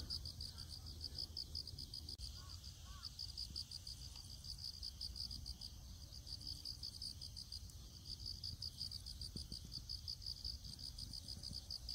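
Crickets chirping in a steady, rapidly pulsed high-pitched trill, weakening briefly about four seconds in before carrying on.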